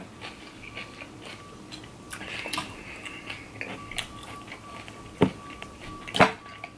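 Metal fork clicking and scraping against the inside of a glass pickle jar while spearing a pickle, a run of small ticks with two louder clinks near the end.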